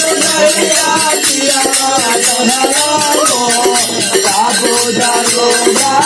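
Instrumental intro of a Bhojpuri Holi folk song: a bending melody line over a steady rhythm of jhaal hand cymbals, with a naal drum.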